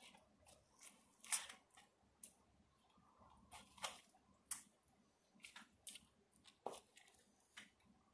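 Patent-leather boots crushing and grinding watermelon pieces and crumbled snacks against a tile floor: faint, irregular crunching and squishing with short crackles, the sharpest about a second in and again at about four and a half seconds.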